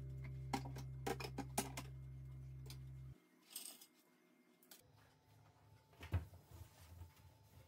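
Light clicks and clinks of kitchenware being handled over a steady low music chord that cuts off about three seconds in; then a short scrape and faint rubbing with soft thumps as a cloth wipes a stainless steel sink's draining board.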